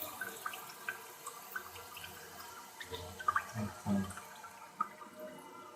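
Faint water trickling and dripping inside a toilet cistern fed by a newly fitted fill valve, with scattered small ticks and a couple of soft low thuds midway.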